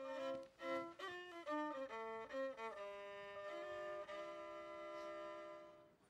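Short bowed-string music: a violin plays a moving melody of short notes over a lower string part, then settles into longer held notes that fade out near the end.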